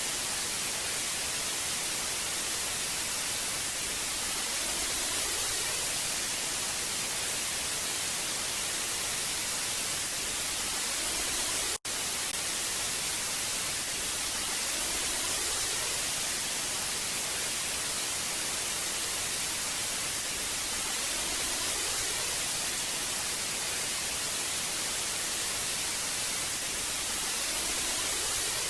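Old analog TV static: a steady hiss, brightest in the high frequencies, that cuts out for an instant about twelve seconds in.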